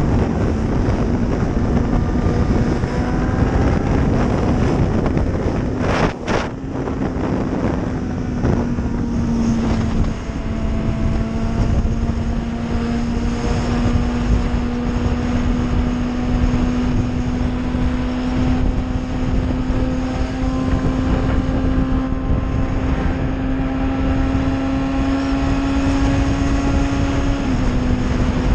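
Motorcycle engine running at a steady high cruising speed under wind rush, its drone climbing slowly in pitch as the bike gathers speed. A couple of sharp knocks and a short dip come about six seconds in, and the pitch steps down near the end.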